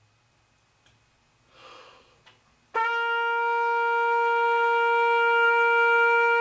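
Trumpet sounding a single held note, its third-space C, steady and clear for about four seconds. It comes in sharply about two and a half seconds in, after a quick breath.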